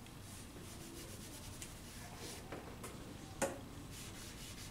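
Hand rubbing and blending charcoal into toned drawing paper, a faint rubbing in short repeated strokes. A single sharp tap about three and a half seconds in.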